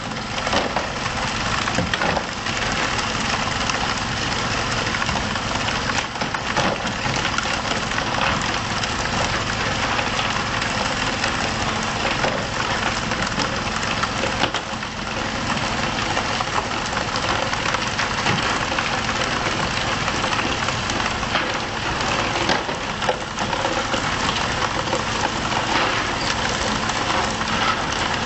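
Fishing boat's engine running steadily under a dense hiss of water spray and splashing, with scattered knocks on the deck.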